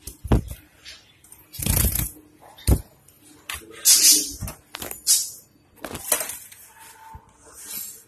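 Irregular knocks and metallic clinks with short rustling bursts, from a metal wire bird cage being handled close up.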